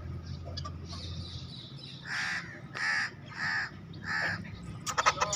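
An animal giving four short, harsh, caw-like calls about two-thirds of a second apart, followed near the end by a quick run of clicks and rattles.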